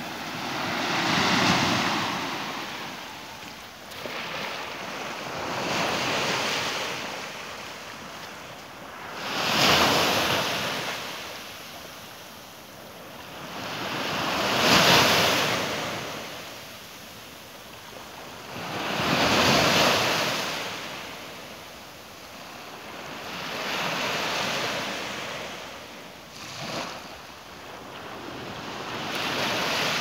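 Small sea waves breaking and washing up onto a sandy beach, a surge of surf rising and falling every four to five seconds.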